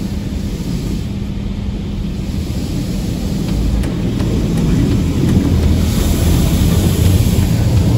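Automatic car wash washing over the car, heard from inside the cabin: a steady, muffled rumble and hiss of water and soap on the body and glass. It grows louder about five to six seconds in as the wash passes over the windshield.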